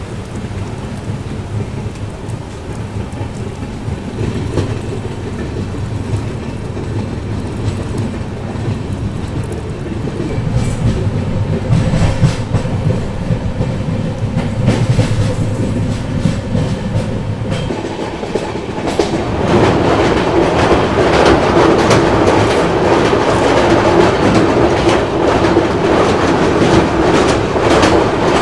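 Passenger train's wheels clattering over rail joints and points as it gathers speed, heard through an open coach window. It grows louder, with a clear jump about two-thirds of the way in, and by the end the train is running across a steel truss bridge.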